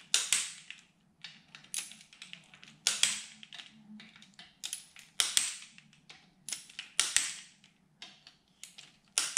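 Click-type torque wrench giving a string of sharp clicks, roughly one every second or so, as it breaks over on one engine-cover screw after another: each click signals that the set torque is reached.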